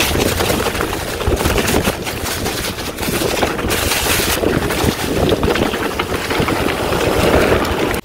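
Mountain bike riding over a dirt trail covered in dry fallen leaves: the tyres crackle through the leaves and the bike rattles with rapid clicks over bumps, with wind rushing on the microphone.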